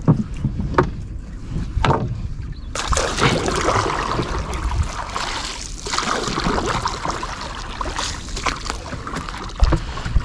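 Wet gill net being hauled by hand into a small fishing boat: water splashing and dripping off the mesh as it comes aboard, with a few knocks in the first two seconds.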